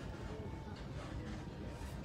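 Indistinct background chatter of a crowd with faint music.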